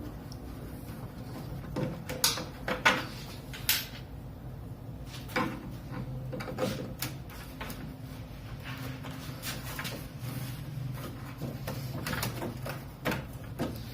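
Scattered clicks, knocks and small scrapes of screws being taken out and a plastic headlight guard being worked loose on a 1987 Porsche 924S. The knocks are sharpest about two to four seconds in and come again near the end.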